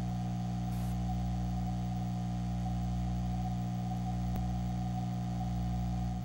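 Steady droning hum of several low held tones with a higher held tone above them, unchanging in pitch and level.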